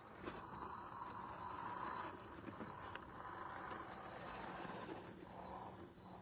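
1:12-scale RC 4x4 crawler driving over rocks, its small electric motor and gearbox giving a high, thin whine that cuts in and out as the throttle is worked, over a grinding hum from the drivetrain.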